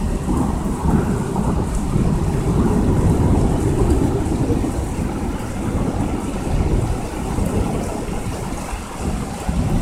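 Thunder rolling for several seconds, a long low rumble that comes in at the start and eases off near the end, over torrential rain.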